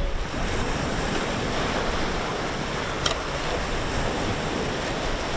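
Steady rushing noise of wind on the microphone, with a single short click about three seconds in.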